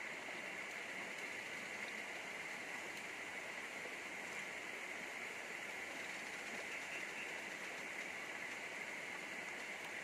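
Steady rush of flowing river water, an even hiss that does not change, with a steady high-pitched hum over it.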